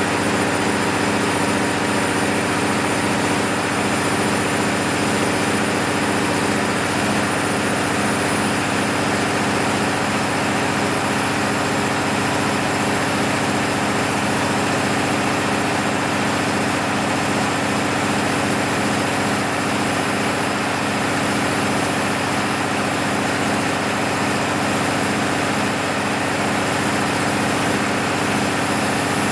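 MEP-006A military diesel generator's freshly overhauled six-cylinder engine running at a steady, unchanging speed under load test.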